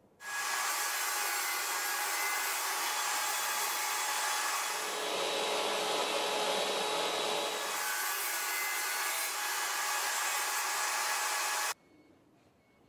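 Small table saw running steadily, its blade cutting into a small wooden block for a few seconds in the middle. The sound starts suddenly and cuts off abruptly near the end.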